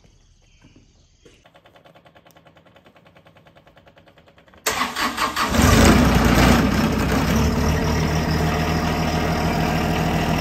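Electric fuel pump ticking quickly with the key on, priming the fuel system after a fuel filter change. Then the John Deere subcompact tractor's three-cylinder diesel engine cranks and starts about four and a half seconds in, stuttering for a moment as air clears from the fuel lines, then settles into a steady idle.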